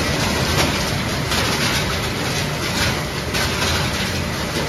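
Refrigerator shredding and sorting line machinery running: a steady mechanical din with irregular clattering, as a motor-driven rotary discharge valve drops shredded plastic and foam fragments onto a conveyor belt.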